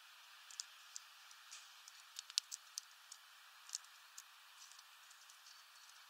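Faint, irregular sharp clicks and taps of a great tit pecking at seed on a feeder tray, with a quick cluster of louder taps a little past two seconds in, over a steady faint hiss.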